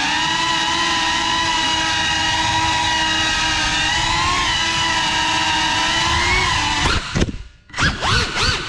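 Cinelog 35 FPV drone's brushless motors and ducted propellers on a 6S battery, a loud steady whine at held throttle. About seven seconds in the whine cuts out for half a second, then returns in quick swells up and down in pitch as the throttle is punched and chopped.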